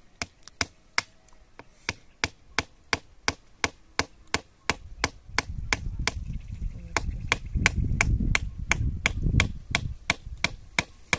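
Rapid, evenly paced chopping strokes, about three sharp strikes a second, with a low rumble in the middle stretch.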